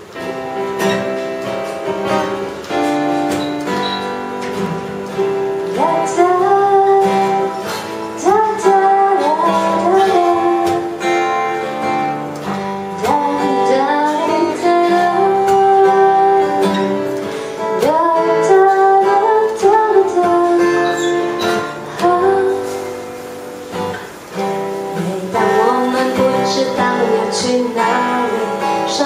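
Acoustic guitar strummed live with a woman singing into a microphone. The guitar plays alone at first, and the voice comes in about six seconds in.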